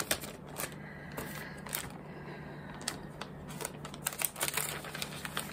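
Clear plastic sheet protectors rustling and crinkling as they are handled, with scattered light clicks and taps.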